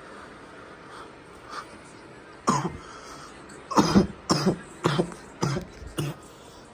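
A person coughing hard after inhaling smoke: a single cough about two and a half seconds in, then a fit of about five harsh coughs in quick succession.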